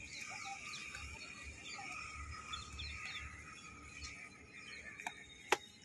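Birds chirping over steady outdoor background noise, with a single sharp knock about five and a half seconds in.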